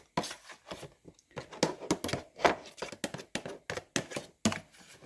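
A quick, irregular run of clicks and knocks, about three or four a second, from kitchen utensils and food containers being handled.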